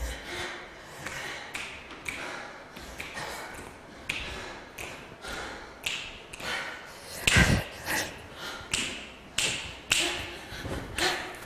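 Irregular series of sharp taps and soft thumps, roughly two a second, each dying away quickly, with one heavier thud about seven and a half seconds in.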